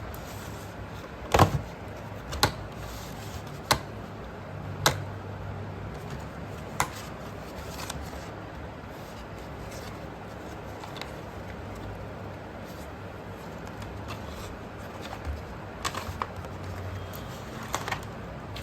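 Slate pencils being handled: a few sharp clicks and taps, five in the first seven seconds and a few fainter ones near the end, over a low steady hum.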